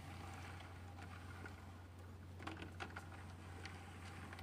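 Faint light clicks and taps of small craft pieces being handled, bunched into a quick cluster about two and a half seconds in, over a steady low hum.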